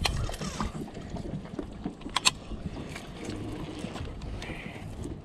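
Wind on the microphone and water slapping around a small boat while a catfish is reeled in on a baitcasting reel, with a sharp click at the start and two quick knocks about two seconds in from handling the rod and reel.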